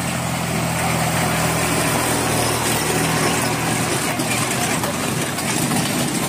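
Small tractor engine running at low, steady revs as it pulls a train of plastic-drum carriages past. Its hum weakens after about three seconds as it moves away, leaving the rolling carriages over gravel.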